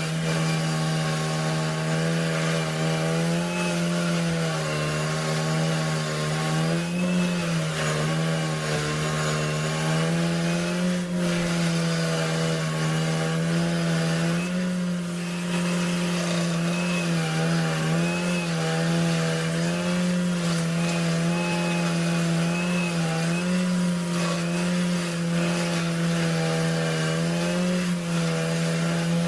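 A power saw, most like a chainsaw, running at high speed with a steady drone whose pitch wavers slightly as it works through wood.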